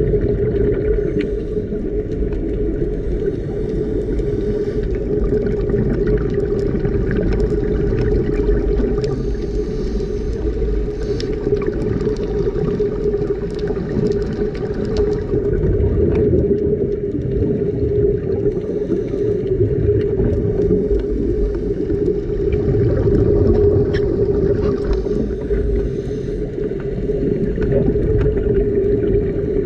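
Underwater sound picked up by a camera in its housing on a scuba dive: a steady low rumble with a constant hum, plus faint crackling and occasional brief hiss.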